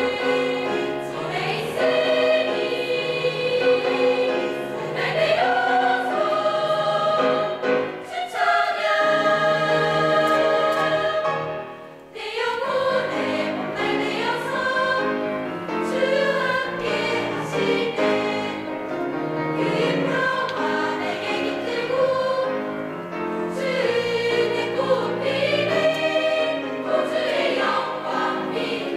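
Girls' choir singing a hymn, several voices on different pitches at once, with a brief drop in level between phrases about twelve seconds in.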